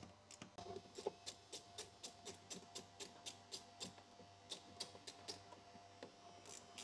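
Faint, even ticking at about four ticks a second, over a faint steady tone.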